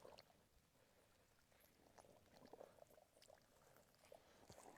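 Near silence with a few faint splashes and sloshes of muddy water as hands grope in a flooded hole for a rice-field eel.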